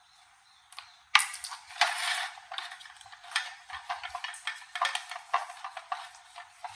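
Small metal parts clinking, knocking and scraping under hand work on a toaster: a sharp knock just after a second in, then an irregular run of clicks and scrapes.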